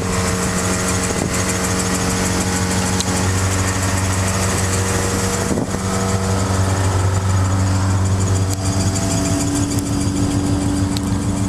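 Toyota 4A-GE twin-cam four-cylinder engine idling fast and steadily, its note shifting a couple of times.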